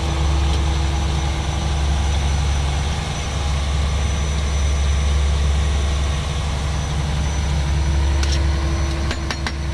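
Fishing boat's inboard diesel engine running with a steady low drone, with a few light clicks near the end.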